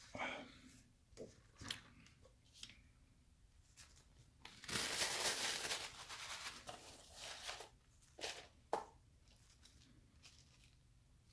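Fast-food packaging being handled on a table: a paper cup set down with a tap, then about two seconds of loud paper and cardboard rustling, and a few light taps and rustles as fries are picked up.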